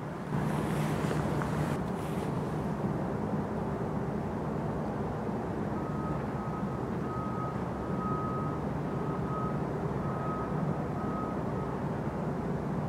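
Steady low diesel drone of a small cargo ship under way. From about halfway through, an irregular run of high beeps like a vehicle's reversing alarm sounds over it.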